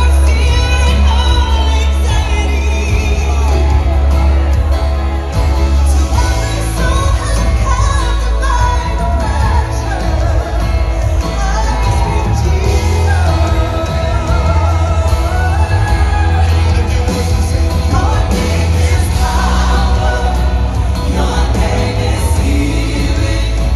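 Live worship team singing a contemporary worship song with several voices over a keyboard-led band, the lead voices wavering with vibrato above a heavy, steady bass.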